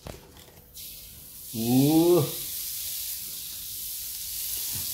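Margarine squeezed into a hot wok begins to sizzle about a second in, a steady hiss that carries on. Around two seconds in, a short pitched call rises and falls over it, the loudest sound here.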